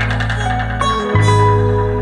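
Background music: a calm instrumental with held notes over a steady bass. The bass stops briefly and comes back in about a second in.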